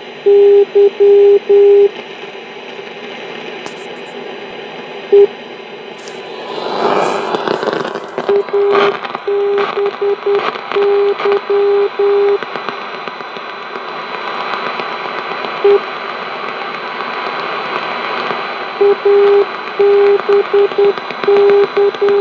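Radio static hiss broken by loud groups of short and long buzzing beeps, the on-off interference pattern that a 2G (GSM) mobile phone puts into a radio's audio. About six seconds in the hiss swells into a louder rushing patch for a second or two.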